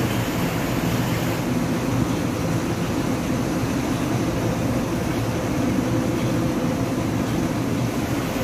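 Aquarium aeration and filtration running: a steady low hum under an even rushing of water and air.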